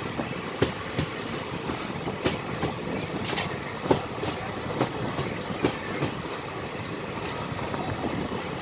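Passenger train running on the track: a steady rumble of wheels and coaches with irregular sharp clacks over the rail joints, and a brief hiss about three and a half seconds in.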